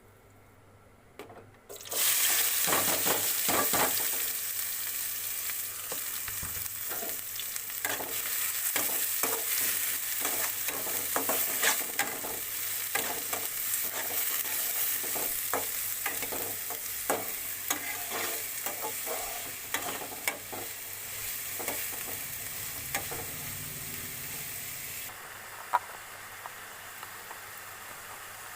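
Food sizzling in hot oil in a pan, starting suddenly about two seconds in, with a spoon scraping and clicking against the pan as it is stirred; the sizzle softens near the end.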